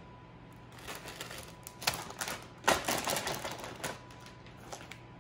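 Plastic bags handled: a zip-top bag of sun-dried tomatoes and a produce bag rustling and crinkling, with a cluster of sharp crackles between about one and four seconds in.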